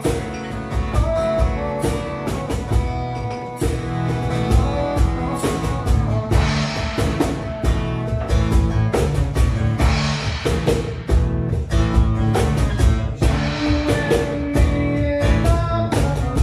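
Amplified acoustic guitar strummed steadily through a song's chords, played live.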